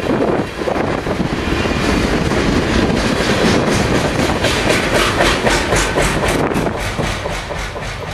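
Freight train boxcars rolling past on steel wheels, with a loud rumble and rapid clickety-clack over the rail joints. The sound eases off near the end as the last cars go by.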